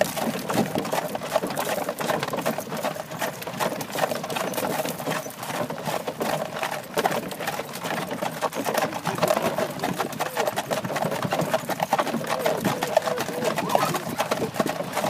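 Horse-drawn buggy on the move: a dense, steady rattle and clatter of the buggy's wheels and body, with the horse's hooves clip-clopping.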